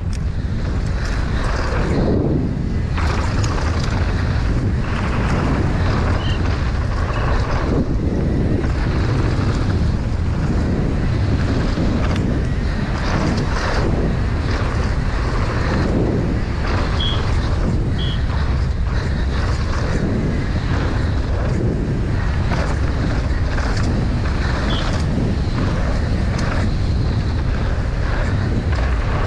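Wind rushing over the camera microphone and tyres crunching on gravel as a downhill mountain bike descends at speed, with a constant clatter of knocks from the bike over rough ground.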